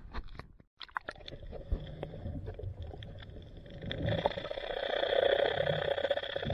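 Several sharp knocks and splashes as a handheld camera is plunged into the sea. After that comes the muffled sound of the submerged microphone: a low rumble with a steady droning hum that grows louder about four seconds in.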